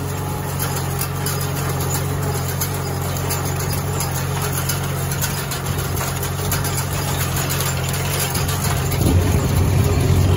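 Farmall H tractor's four-cylinder engine running steadily in fourth gear while pulling a hay rake, getting louder about nine seconds in.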